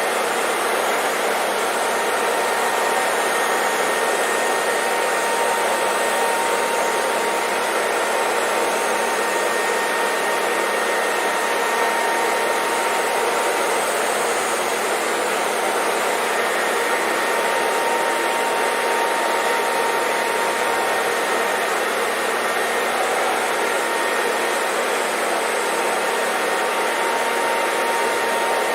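Hair dryer running steadily: an even rush of blown air with a faint, constant motor whine.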